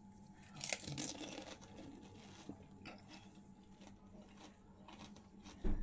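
A golgappa (pani puri) shell filled with spicy water crunches as it is bitten about a second in, followed by faint chewing. A dull thump comes near the end.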